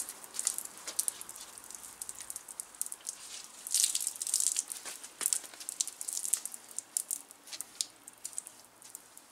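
Cloth wiping down a freshly washed aluminium road bicycle: uneven rubbing swishes, heaviest about four and six seconds in, with many scattered light clicks and ticks.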